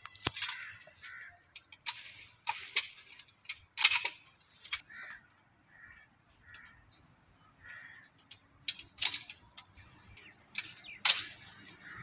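Intermittent rustling and crackling of dry leaves and thin almond branches underfoot and in the hands, with a few sharper snaps. A run of short, faint bird calls sounds in the middle.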